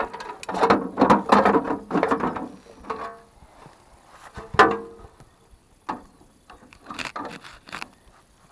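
Metallic clicks and rattles from hands working on a Jawa 50 Pionýr moped's engine, with the engine not running. The handling is busiest in the first two and a half seconds, followed by a few separate knocks.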